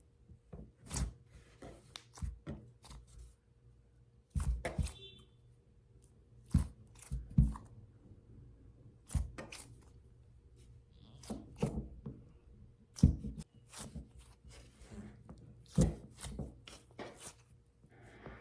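Nee Doh squishy stress toys being squeezed, tapped and handled: irregular short taps and squishes with soft rustles in between.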